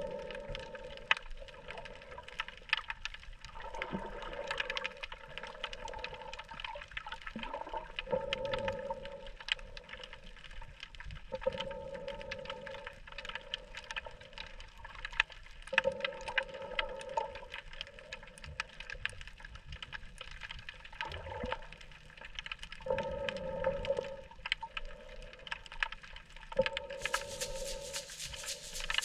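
Underwater ambience from a submerged camera: a steady crackle of small clicks over water noise, with a humming tone that swells and fades every few seconds. Music comes in near the end.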